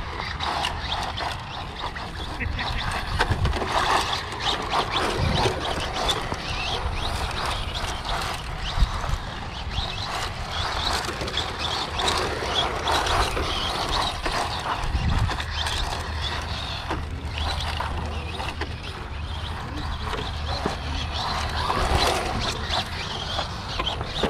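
Outdoor ambience: indistinct voices chattering over a steady low hum, with scattered clicks and ticks.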